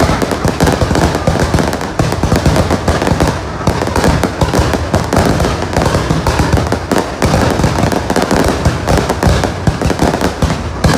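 Aerial fireworks display: a dense, continuous barrage of rapid bangs and crackles with no pause.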